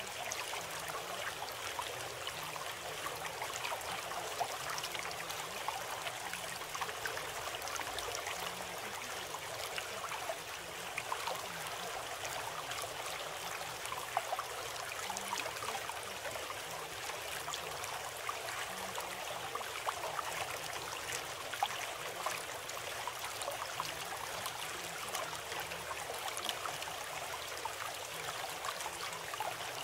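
Steady sound of trickling, bubbling running water, like a small stream, holding even throughout.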